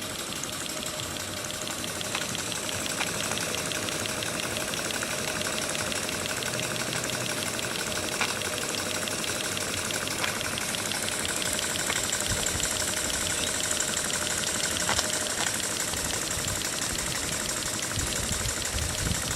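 Perseus model steam engine running steadily: a fast, even ticking beat over a steady hiss, with a few low knocks near the end.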